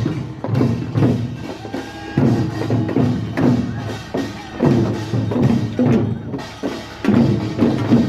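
Korean traditional funeral song (sangyeo sori): low voices singing in a steady rhythm, with a knocking percussion stroke starting each phrase about once a second.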